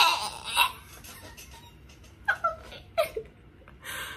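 A woman's short non-word vocal sounds: a breathy burst, two brief little sounds falling in pitch, and a short hiss of breath near the end.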